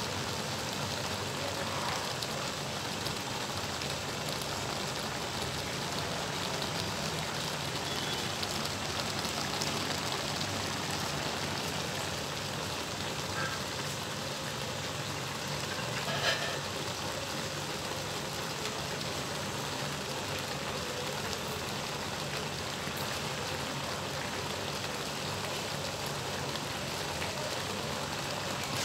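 Fish-and-vegetable tagine simmering in its pan, a steady sizzle and bubbling of the sauce, with one small click about sixteen seconds in.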